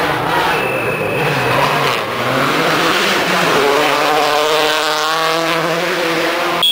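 Turbocharged four-cylinder WRC rally car driving hard through a water splash: a rush of spray a couple of seconds in, then the engine note rising as it accelerates away through the gears.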